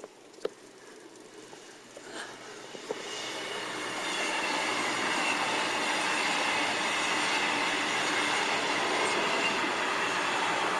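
A few light clicks, then about three seconds in a steady rushing noise builds up over a second and holds, with a faint high tone running through it.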